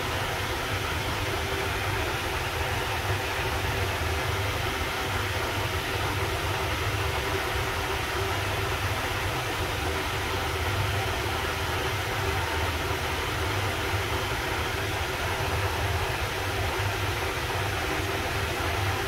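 Finolex wall fan running at a steady speed: a constant whir of air off the blades over a low motor hum.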